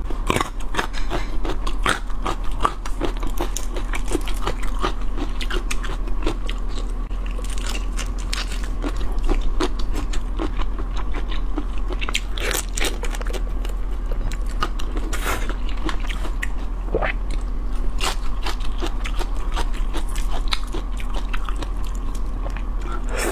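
Close-miked biting and chewing of large whole prawns, with shell crunching and many sharp wet clicks. Near the end, a prawn's shell crackles as it is pulled apart by hand. A steady low hum runs underneath.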